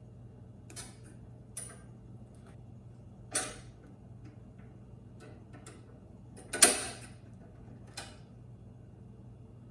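Scattered sharp clicks and knocks of metal parts being handled while a new brake bail is fitted to a push mower's handle. There are about five clear knocks, the loudest about two-thirds of the way through.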